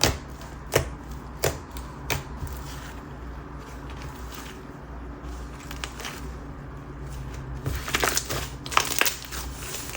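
Stretchy, chewy whipped slime being squished and pulled by hand, making sticky clicks and pops: a few spaced clicks in the first two seconds, a quieter stretch, then a quick run of them near the end.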